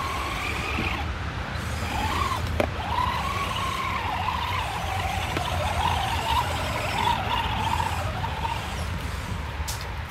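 RC model car's electric motor and gears whining, the pitch wavering up and down with the throttle, over a low rumble, with a sharp click about two and a half seconds in.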